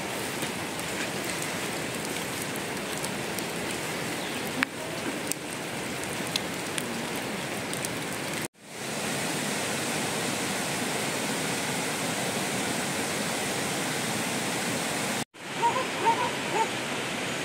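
Steady rain hiss falling over the forest, cutting out abruptly twice, with a few faint clicks in the first half and a few faint short high notes near the end.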